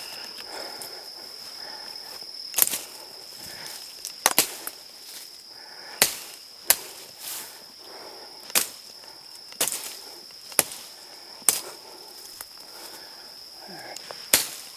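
Dull machete chopping brush: about ten sharp strikes, irregularly spaced a second or so apart. A steady high insect drone runs underneath.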